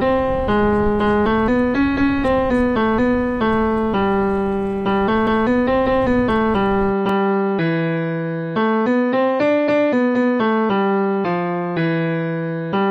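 A simple melody picked out note by note on a virtual piano web app, a sampled piano sound at about two to three notes a second in the middle register. A steady low background noise under the notes cuts off about halfway through.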